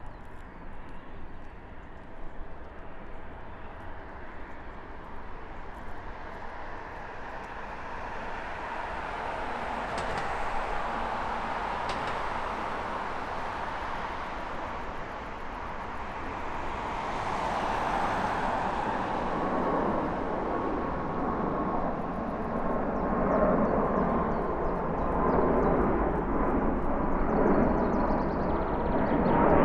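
Aircraft engines: a steady rushing noise that grows louder over the whole stretch, with a steady whine rising out of it in the second half.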